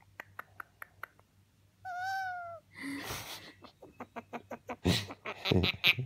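Senegal parrot making attention-seeking noises: a short, slightly arched whine about two seconds in, then a breathy sigh, then a fast run of clicks toward the end.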